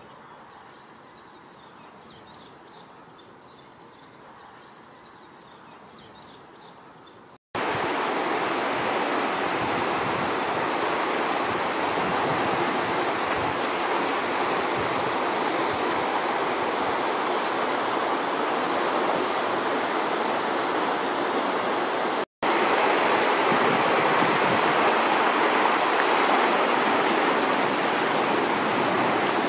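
Muddy floodwater of a flash-flooded stream rushing and churning in a steady, loud torrent. It begins suddenly about a quarter of the way in, after a few quiet seconds with faint high chirps, and breaks off for an instant about three quarters of the way through.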